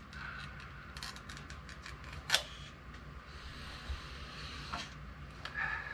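Metal lid of a canned-meat tin being worked open by hand: a run of small metallic clicks and creaks, with a sharper snap a little over two seconds in and another near the end.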